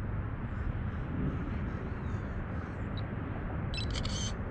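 Steady low rumble of distant highway traffic, with a brief high chirping sound near the end.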